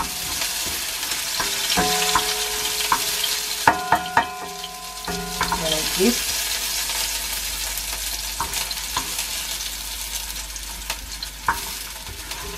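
Red onion rings sizzling in hot oil in a frying pan, with metal tongs clicking against the pan as the rings are turned.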